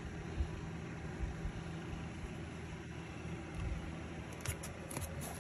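A steady low mechanical hum, with a few faint sharp clicks near the end.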